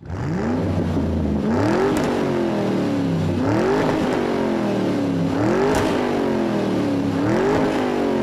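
Race-car engine sound effect revving over and over, about five quick rises in pitch, each falling back, with two sharp pops, one about two seconds in and one near six seconds. It starts suddenly.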